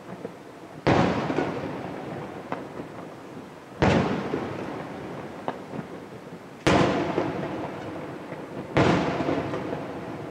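Aerial firework shells bursting: four loud booms roughly two to three seconds apart, each trailing off in a long rumble.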